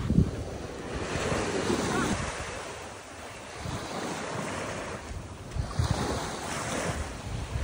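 Small waves washing onto the shore, with wind gusting on the microphone in low rumbles.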